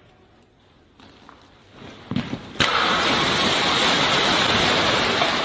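An explosion: a sudden blast about two and a half seconds in, then a loud, steady rushing roar that holds until the sound cuts off. A low thud and a few crackles come just before the blast.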